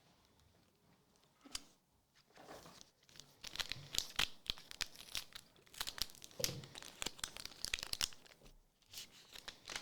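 Foil wrapper of a Magic: The Gathering collector booster pack being torn open and crinkled, a dense run of sharp crackles and rustles starting a couple of seconds in.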